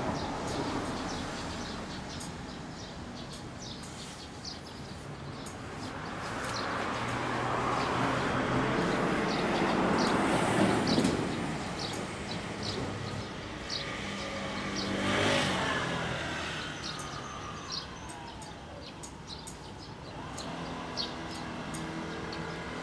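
Cars passing on a street, the noise swelling and fading, once long and once briefly about two-thirds of the way in, with small birds chirping throughout.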